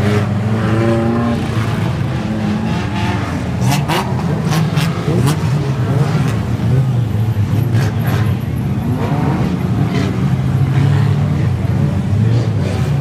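Several banger racing cars' engines running as they race round the track, a steady loud low drone. A cluster of sharp knocks comes about four to five seconds in, and another around eight seconds.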